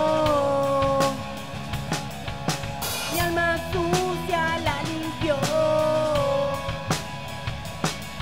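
A rock band playing live: electric guitars and drum kit with steady drum hits, and a singer holding a long note at the start.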